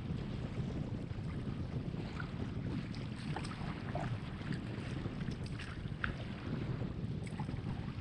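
Strong wind rumbling steadily on the microphone, with small scattered splashes of water from kayak paddling through choppy lake waves.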